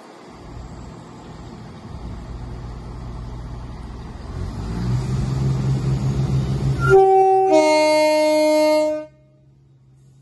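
A train approaching, its running noise building, then sounding its two-tone horn: a short high note about seven seconds in followed at once by a longer, lower note, which cuts off abruptly.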